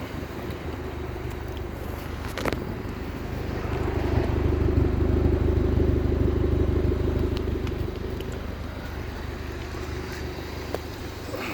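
Honda D16Y1 1.6-litre SOHC VTEC four-cylinder running steadily, with no rod knock now that its connecting rod bearings have been replaced. The engine grows louder for a few seconds in the middle, then settles back. There is a single sharp click about two and a half seconds in.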